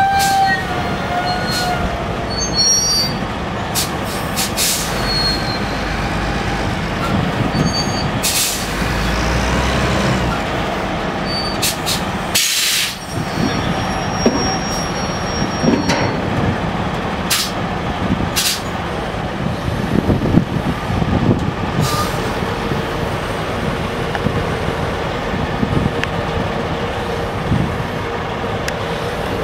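Reach stacker's diesel engine running steadily as it lowers a shipping container onto a flat rail wagon, with scattered sharp clanks and short hisses throughout.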